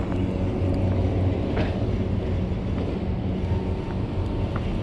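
A steady low engine drone with a constant hum.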